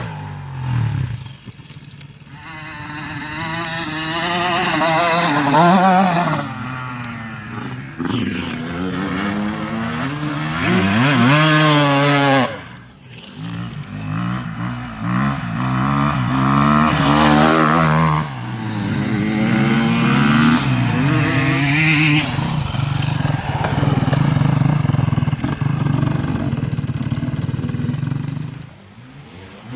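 Two-stroke dirt bike engine being ridden hard, its pitch rising and falling as it revs up and drops back again and again. The level dips sharply about a second in, around halfway and near the end.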